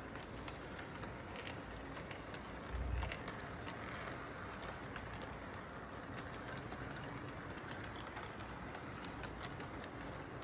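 Model electric train cars rolling past on the track, a steady rolling rumble with irregular small clicks of wheels over the rail joints. A single low thump about three seconds in.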